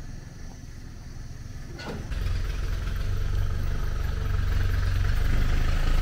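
A motor vehicle's engine running, faint at first and then growing steadily louder from about two seconds in, as if approaching.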